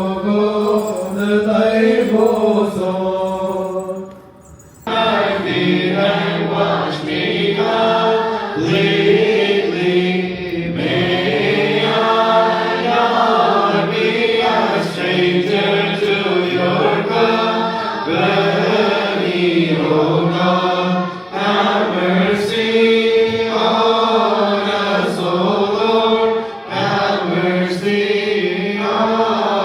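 Orthodox liturgical hymn chanted in a sung melody, pausing briefly about four seconds in before the chant resumes.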